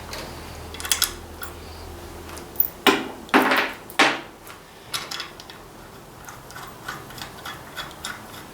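Hand tools and metal parts clinking and knocking during hand work on an engine, with a cluster of sharper knocks about three to four seconds in, then lighter ticks.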